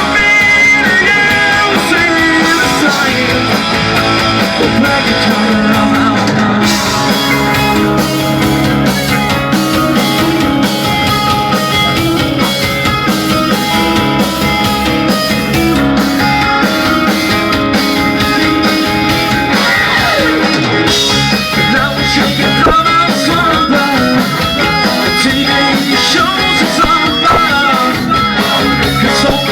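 A rock band playing live, with guitar, drums and some singing. The sound gets fuller from about seven seconds in as the cymbals come up.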